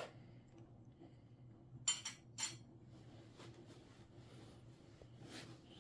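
Russian Blue cat purring softly and steadily, with a quick cluster of light clinks about two seconds in.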